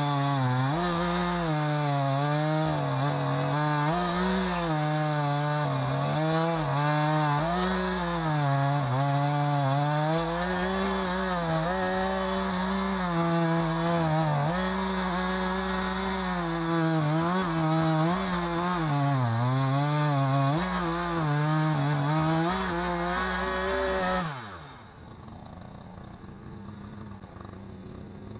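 Gas chainsaw running at high revs under load while ripping a log lengthwise into a beam, its engine pitch wavering as the cut goes on. Near the end the throttle is let off, the pitch falls and the saw drops to a quieter idle.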